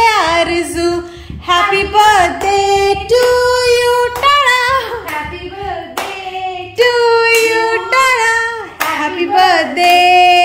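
A woman singing, joined by children, with hands clapping along.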